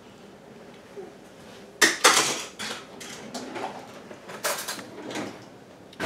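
A few irregular clacks and knocks from a wire potato masher against a plastic mixing bowl of crushed berries, starting about two seconds in.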